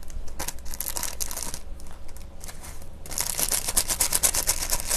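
A small plastic seasoning-flake sachet, such as those packed with Buldak ramen, is torn open with sharp rustles. About three seconds in, it crinkles rapidly as it is shaken and the flakes are sprinkled over the noodles.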